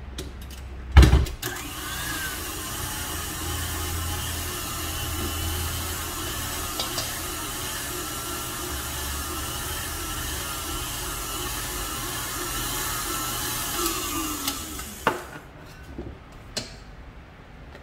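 KitchenAid Artisan tilt-head stand mixer whipping meringue with its wire whisk: a loud knock about a second in, then the motor runs steadily and cuts off about fifteen seconds in, followed by a few light clicks.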